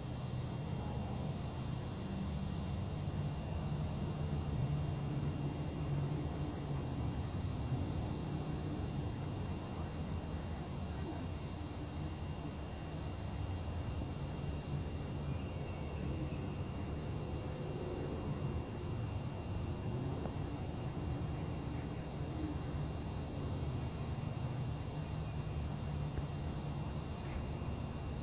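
Crickets chirping in a high, steady pulsing trill that never stops, over a low steady rumble.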